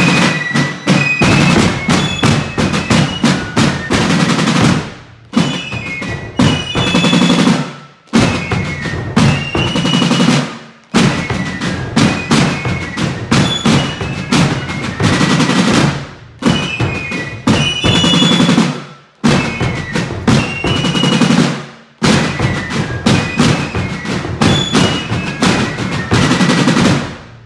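Fife and drum corps playing: rope-tensioned field drums beating out rolls and strokes while fifes carry a high tune. It comes in short phrases broken by brief pauses, and it stops just before the end.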